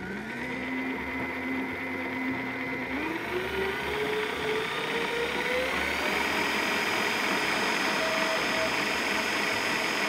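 Electric stand mixer whisking egg whites and sugar into meringue. The motor runs steadily, then its whine rises in pitch from about three to six seconds in as the speed is turned up, and holds at the higher speed.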